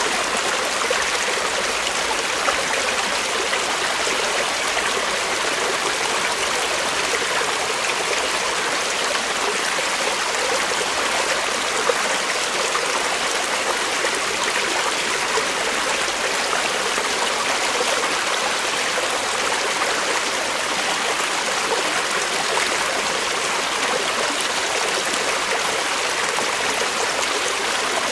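Creek water flowing over rocks, a steady rushing and babbling.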